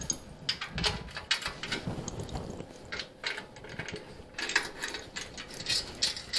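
Wrench working a bolt on a motorcycle's rear fender mount: a string of irregular metallic clicks and clinks.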